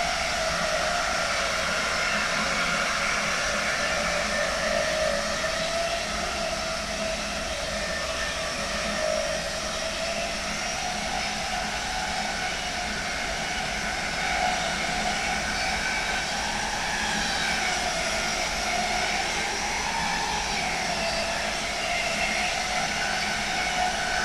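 GTO inverter whine of a DB Class 101 electric locomotive's Adtranz/ABB MICAS-S traction converter, heard from the coach coupled behind it: several tones that waver slightly in pitch over the steady rumble of the running train.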